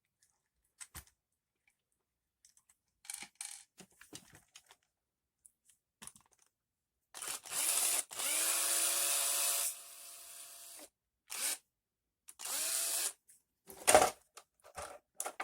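Small cordless drill driving out tiny bumper screws on a 1/18 RC truck: its motor whines for about four seconds from about seven seconds in, dropping in strength near its end, then runs again briefly, with small clicks of screws and plastic between. Its battery may be running low, as the owner suspects.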